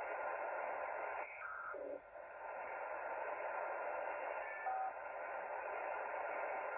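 Xiegu G90 HF transceiver receiving the 20-metre band in upper sideband while being tuned: a steady hiss of band noise, cut off above the receive filter's passband. The noise briefly drops about a second and a half in, and short tones from signals tuned past are heard there and again near the five-second mark.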